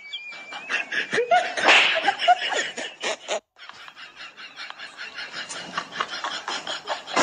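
People laughing in quick, pulsing bursts, breaking off briefly about three and a half seconds in.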